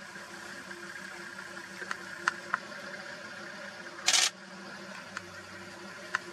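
Camera clicks: a few light, sharp clicks and one short, louder click-burst about four seconds in, over a faint steady hum.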